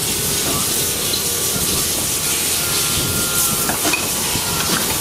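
Hydraulic breaker hammer on a battery-electric CMX18 mini excavator pounding concrete in a rapid, steady rattle of blows.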